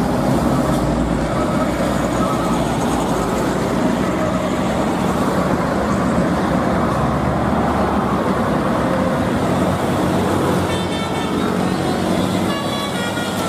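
Vehicle engine running steadily, with runs of short high horn toots about eleven seconds in and again near the end.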